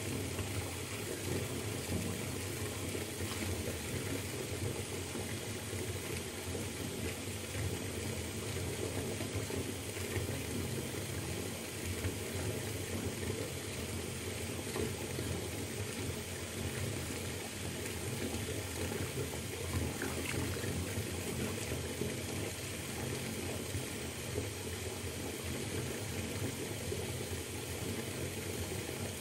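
A bathtub filling from a running tap: water pours steadily into the tub.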